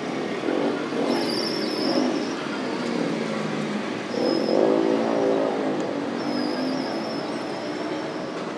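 A motor vehicle's engine passing, swelling and falling in pitch twice over a steady background of traffic noise, with a thin high whine now and then.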